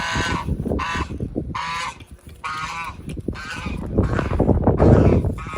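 Geese honking over and over, short calls following each other about every 0.7 s, with a low rumble underneath.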